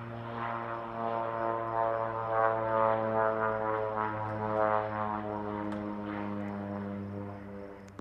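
Propeller airplane's engine passing low overhead, a steady droning note that grows louder to a peak around the middle and then fades away.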